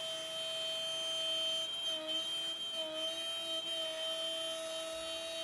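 Shapeoko Pro CNC router's spindle whining at a steady pitch as the bit cuts into a beech board, the pitch sagging briefly twice as the bit takes load.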